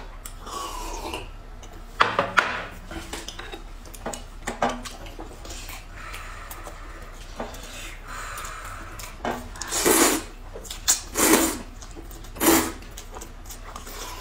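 People eating noodle soup: utensils clicking and scraping against bowls and a glass jar, with several short, loud slurps of noodles about two-thirds of the way through.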